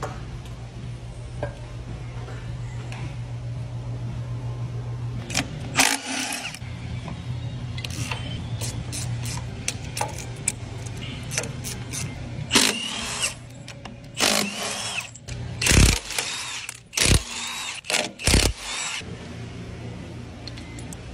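Cordless impact wrench running in short bursts on the end-housing bolts of a large electric motor, among knocks and clanks of heavy metal parts, with a few heavy thumps near the end. A steady low hum runs under the first few seconds.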